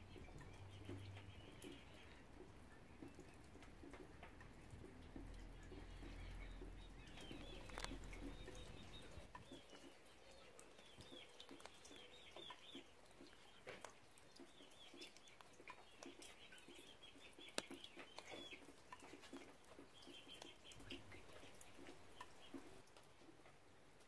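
Faint rain ambience: scattered water drips and light patter, with small birds chirping on and off. A low rumble underneath fades out about nine seconds in.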